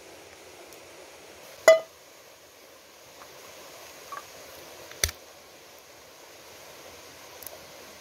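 Cookware clinking. There is one sharp, briefly ringing clink of metal on metal or glass about two seconds in, then a duller knock about three seconds later, over a faint steady outdoor background.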